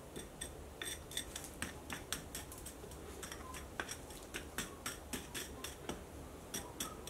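A metal rod digging and poking through casting sand to free a cast aluminium handwheel, giving a faint run of irregular clinks and ticks as it strikes lumps of sand and the metal casting.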